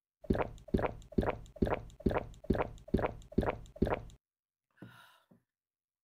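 A person gulping a drink from a mug: about nine loud swallows at a steady pace of roughly two a second, stopping about four seconds in. A brief fainter sound follows about a second later.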